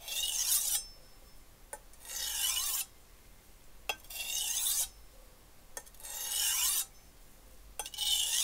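Wüsthof chef's knife edge drawn across a wet 400-grit Bob Kramer whetstone: five rasping heel-to-tip strokes, each under a second and about two seconds apart, each preceded by a light tick as the blade is set down at the heel.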